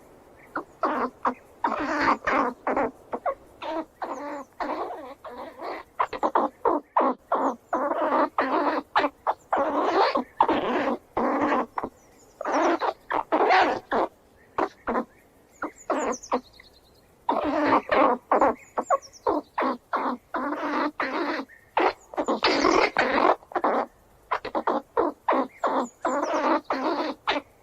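Squirrel squealing: rapid runs of short, harsh calls repeated in quick bursts, broken by brief pauses and a longer lull around the middle.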